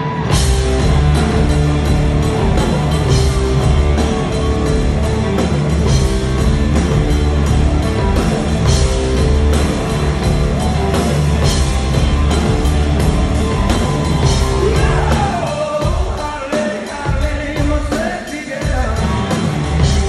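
A rock band playing loud and live, recorded on a phone from the audience: electric guitar through Supro amplifiers, bass and drums with cymbals come in together suddenly about half a second in. Near the end the band thins out and singing comes through.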